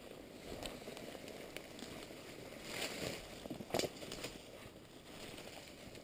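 Footsteps and a fox carcass brushing through dry leaf litter and undergrowth: steady rustling and crunching, swelling about three seconds in, with a few sharp snaps of twigs, the loudest a little under four seconds in.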